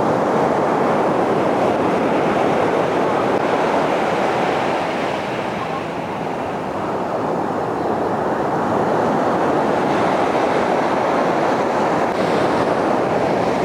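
Sea surf breaking and washing up the beach in a steady rush that eases slightly mid-way and builds again, with wind on the microphone.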